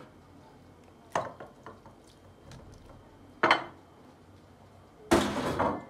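A tray knocking against a glass oven dish as raw beef slices are laid into it. There are two short knocks about a second and three and a half seconds in, then a louder scraping clatter of about half a second near the end as the tray is tipped over the dish.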